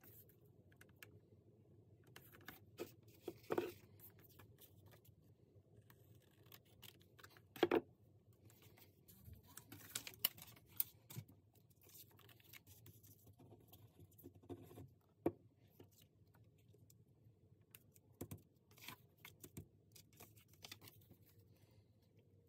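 Paper and photo prints being handled on a craft table: soft rustles, slides and light taps, with a few sharper knocks, the loudest about eight seconds in.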